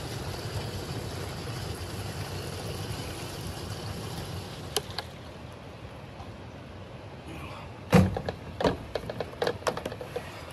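Fuel pouring from a plastic jug through a cloth-covered funnel into a plastic canister, a steady rush for the first few seconds that then eases. About eight seconds in comes a loud knock, then a run of plastic knocks and clatters as the jug and canister are handled.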